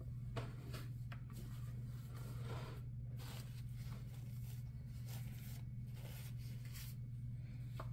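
Paintbrush bristles swishing and scraping across a plaque in a series of short strokes as acrylic paint is spread, over a steady low hum.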